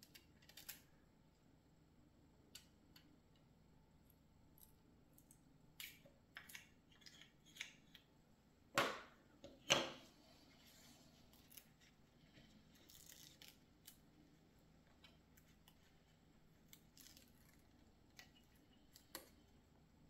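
Faint clicks and short rustles from handling a sheet of small stickers and plastic model parts. Two louder sharp snips or clicks come close together a little under halfway through.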